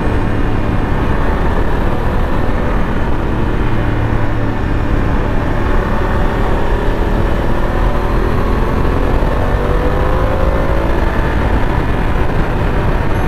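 Motorcycle engine running at road speed, mixed with heavy wind noise on the bike-mounted camera's microphone; the engine note rises in pitch about two thirds of the way through as it accelerates.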